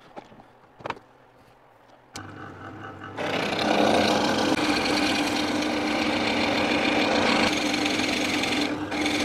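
Clarke bench drill press switched on about two seconds in, its motor running steadily, then a Forstner bit boring into wood with a loud, continuous cutting noise; machine and cutting stop together at the very end.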